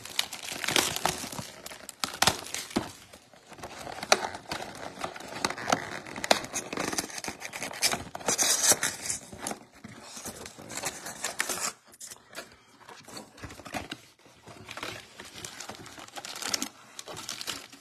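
Cardboard trading-card box being torn open by hand: the perforated flap ripping, with irregular rustling and sharp crackles of cardboard being handled.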